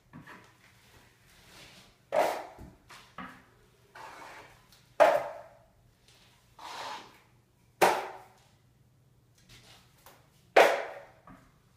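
Steel drywall knife scraping joint compound, in separate strokes about every three seconds, each starting sharply and fading quickly.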